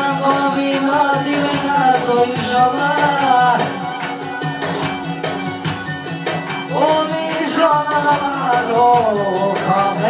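A man singing a wavering, ornamented melody through a microphone over instrumental backing music.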